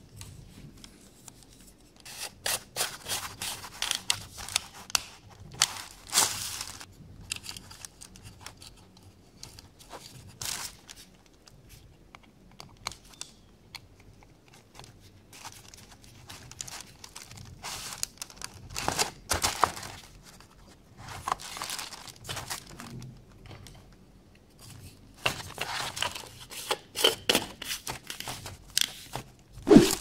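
Irregular rustling, scraping and clicking of hard plastic and metal parts being handled: a rotary telephone's plastic handset and its metal mouthpiece and earpiece capsules being fitted together by hand. The sounds come in short clusters with quieter gaps between.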